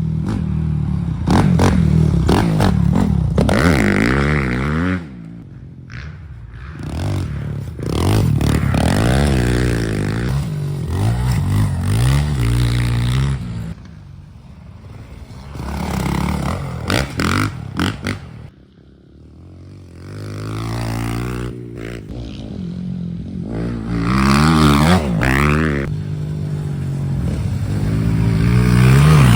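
Dirt bike engine revving up and falling back over and over, with a few short lulls where the throttle drops off.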